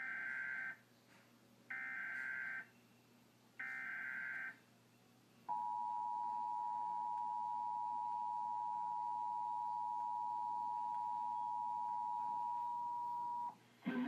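Emergency Alert System broadcast through a television's speaker: three short bursts of SAME header data tones, each about a second long, then the two-tone EAS attention signal, a steady pair of tones sounding together for about eight seconds that cuts off abruptly. The alert announces a severe thunderstorm warning.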